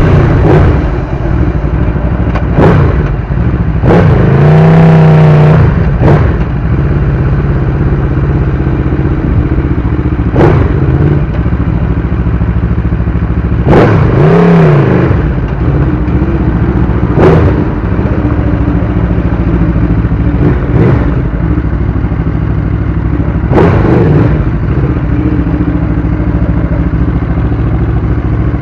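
Aprilia RSV4 superbike's V4 engine through an SC-Project exhaust, idling with several short throttle blips, one held a little longer about four seconds in.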